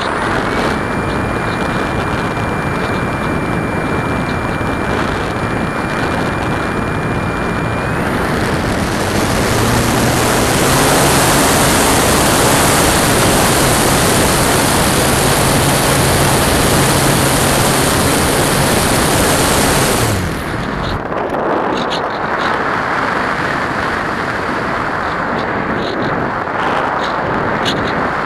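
Onboard sound of a ParkZone Radian electric RC glider. Its motor runs with a thin, steady high whine, then about eight seconds in goes to full power for the climb, louder with rushing air. About twenty seconds in the motor cuts off suddenly, leaving only wind noise over the airframe as it glides.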